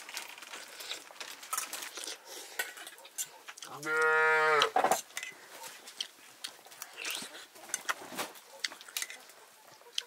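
A farm animal calls once about four seconds in: a single loud call about a second long that holds its pitch and then drops as it ends. Light clicks and knocks sound around it.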